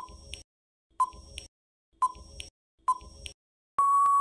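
Quiz countdown timer sound effect: a short electronic tick about once a second, four times, then a long steady beep starting near the end as time runs out.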